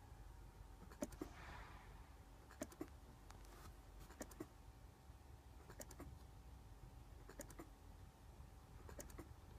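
Faint clicks in pairs about every second and a half over a faint steady hum, from the Audi A6 Climatronic's heater flap servo motors as they run through their basic-settings calibration.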